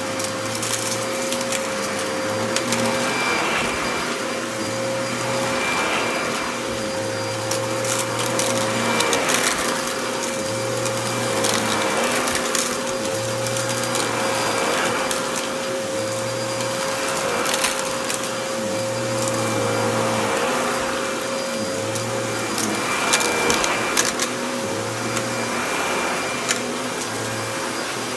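Upright vacuum cleaner running on a shag rug, its motor giving a steady whine. The sound swells and eases about every two seconds as it is pushed back and forth, with scattered sharp clicks.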